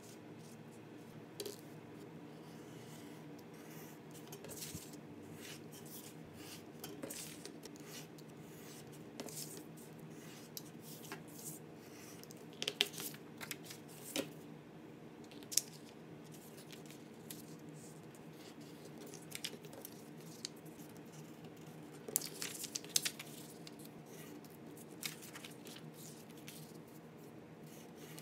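Paper sheets being handled, folded and creased by hand on a cutting mat: scattered rustles, light creasing and small taps, busiest in two short spells, over a faint steady hum.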